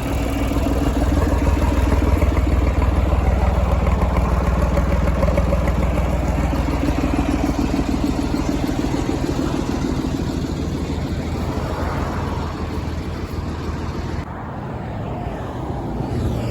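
A vehicle engine running steadily at idle close by, a deep even hum; the sound drops a little and grows duller near the end.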